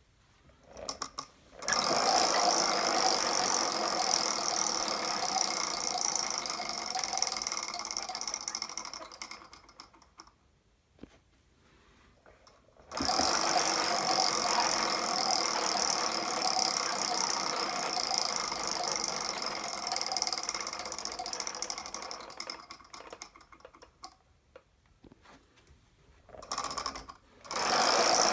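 A homemade Wheel of Fortune wheel spun by hand, the pegs around its rim clicking rapidly against the pointer. The clatter slows and fades into separate ticks as the wheel coasts to a stop. It is spun three times: early on, about halfway, and again just before the end.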